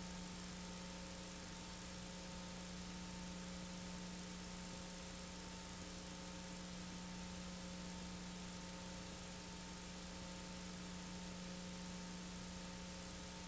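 Steady electrical hum with a few fainter higher tones over an even hiss, unchanging throughout. This is the noise floor of a silent home-movie film transfer, with no sound from the scene itself.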